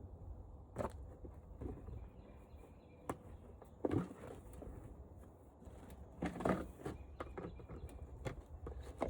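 Quiet handling noises: scattered light clicks, taps and rustles as stripped copper wire and a plastic container are handled, over a low steady hum.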